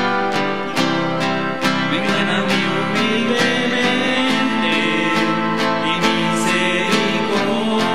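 Offertory hymn music led by strummed acoustic guitar, steady strums about two to three a second under sustained chords.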